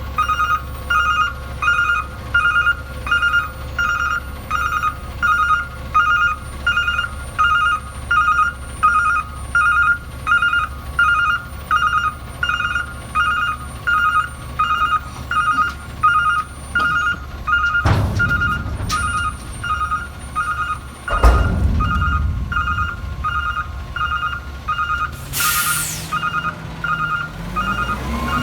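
Electronic beeper sounding a steady two-tone beep about one and a half times a second, over a low rumble. Two sudden thumps come about 18 and 21 seconds in.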